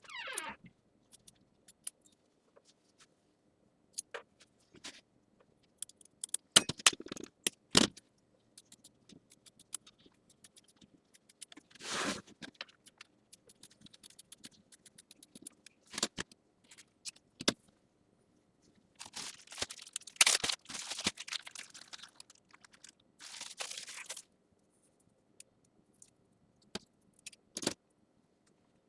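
Scissors trimming away excess quilt batting: scattered snips and clicks with short rustling scrapes of the batting, busier about two-thirds of the way through, over a faint steady hum.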